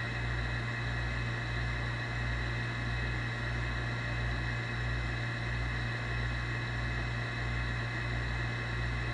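Steady mechanical hum with a slow low throb pulsing about every two-thirds of a second, and a faint high whine over it.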